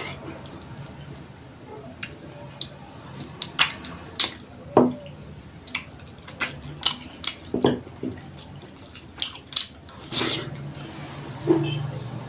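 Mouth sounds of a person eating with his fingers: wet chewing and lip smacks in an irregular string of short, sharp clicks.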